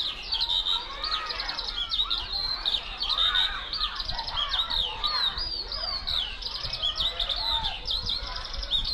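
Many small birds chirping and singing at once: a dense, unbroken stream of quick high chirps and twitters, with some lower calls mixed in.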